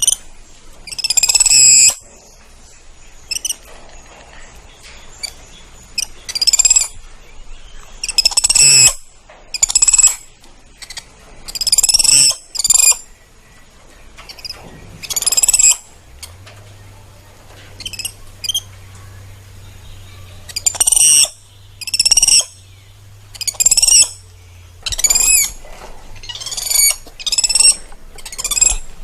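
Spider monkey giving a long series of shrill, squeaky calls, each under a second with a wavering pitch, repeating every second or two.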